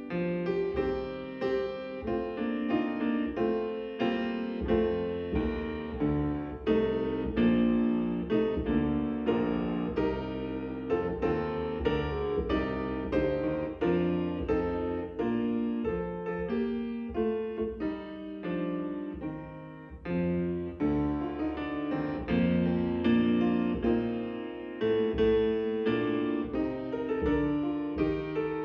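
Solo piano playing the church service prelude: many struck notes and chords, each one dying away after it is played.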